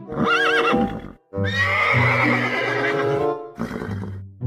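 Zebras calling over background music: a short neighing call, then a longer one about a second and a half in.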